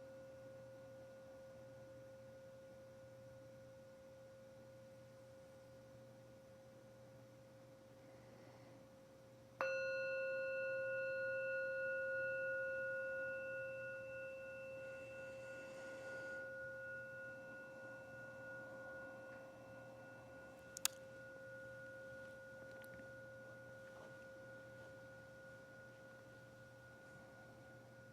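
Meditation bowl bell struck once about a third of the way in, over the fading ring of an earlier strike, then ringing on in a long, slowly fading tone with several higher overtones; rung to close the guided meditation. A single small click sounds about two-thirds through.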